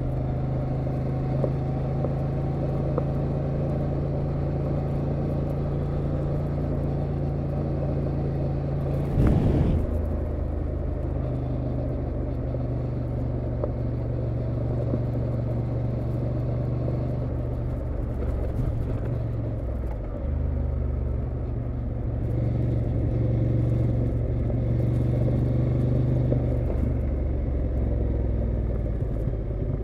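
Honda Transalp XL750's parallel-twin engine running under way at road speed, close up, its note easing off and picking up again a few times. A brief loud knock about nine seconds in.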